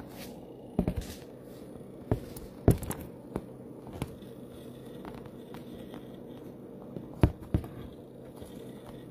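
Handling noise: scattered sharp knocks and taps, about five loud ones and a few softer, over a steady low hum.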